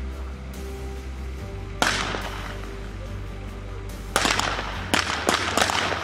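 Rifle shots on a firing range: one shot about two seconds in, then a quick run of about four more near the end, each with a short echoing tail, over steady background music.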